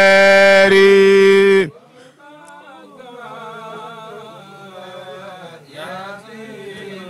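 A man chanting an Arabic devotional poem of supplication unaccompanied, holding a long, loud, steady note that breaks off after about a second and a half. Fainter, wavering singing carries on after it.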